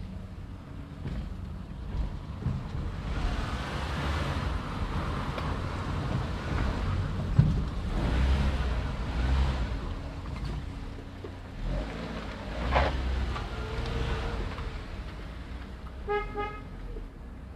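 A car driving slowly, heard from the car: a steady low engine and road rumble that swells and eases. Near the end come two quick runs of short, pitched toots.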